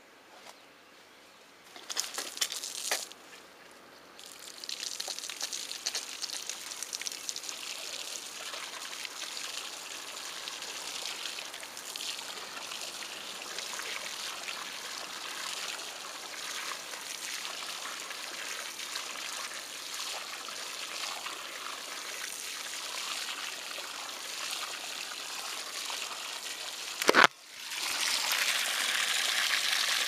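Water from a garden hose splashing steadily into a concrete bird bath bowl as it fills, starting about four seconds in. A brief loud knock comes near the end, after which the splashing is louder.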